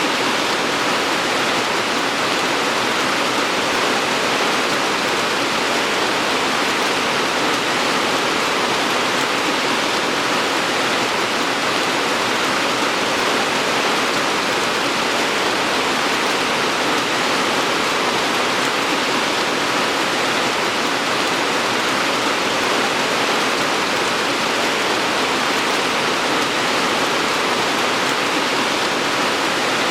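Steady rain falling, a continuous even hiss without separate drops or changes.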